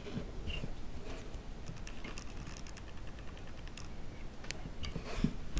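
Faint scattered clicks and light rustling as a needle is worked through the loops of a knitted collar on a knitting loom and the cord is pulled through.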